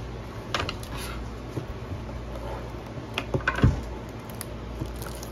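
Light clicks and taps of a cardboard trading-card blaster box being handled by hand, with a dull thump about three and a half seconds in.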